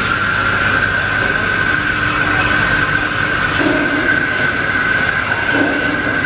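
Thaco EZ50S wire cutting machine running: a steady high whine over a continuous hum and hiss.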